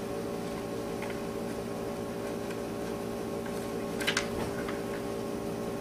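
Steady room hum made of several held tones, with a short paper rustle about four seconds in as a sheet of sermon notes is handled at the pulpit.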